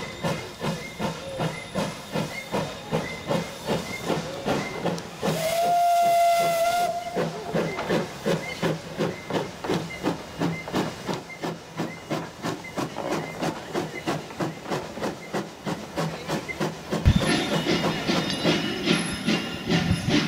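Small tank steam locomotive working a coal train, its exhaust chuffing in a steady beat of about two to three a second over a hiss of steam. About five seconds in, the steam whistle sounds once for about a second and a half. Near the end there is a thump, then the hiss grows louder.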